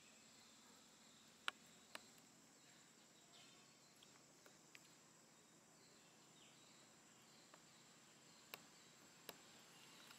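Near silence: faint outdoor ambience with a thin, steady high insect drone, broken by a few short, sharp clicks, two early and two near the end.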